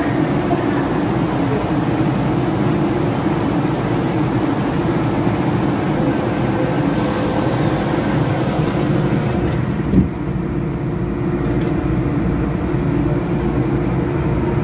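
MTR M-Train standing at the platform with a steady electrical hum, then a single sharp thud about ten seconds in as the doors shut.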